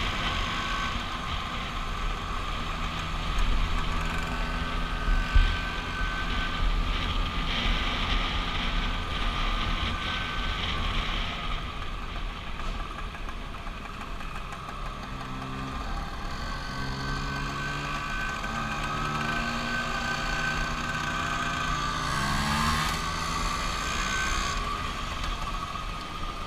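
Vespa scooter engines running on the move, heard from a riding scooter with steady wind rumble on the microphone. In the second half the engine notes shift up and down in pitch, with a short rise near the end as other scooters draw alongside.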